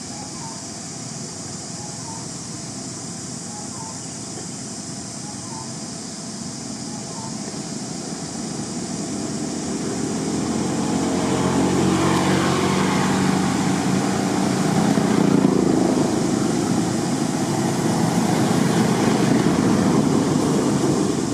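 A motor vehicle engine drawing closer and passing by, growing steadily louder over several seconds, its pitch sliding down as it goes past, then running on loudly near the end.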